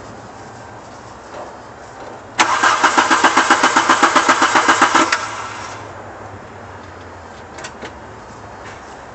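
Car's starter motor cranking the engine for nearly three seconds, a rapid rhythmic churning of about seven strokes a second, then stopping without the engine catching: a failed start attempt on a car that won't restart after being shut off.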